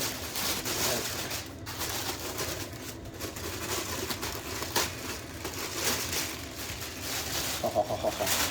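Cardboard box and plastic packaging rustling and scraping as they are handled, with small knocks throughout.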